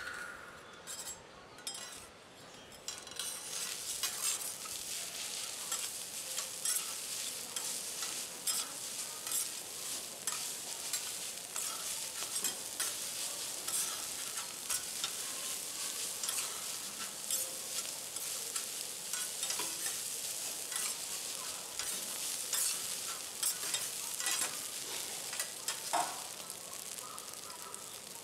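Garlic fried rice with egg sizzling on a hot teppanyaki griddle while steel spatulas chop and turn it, with frequent sharp taps of metal on the plate. The sizzle swells about three seconds in.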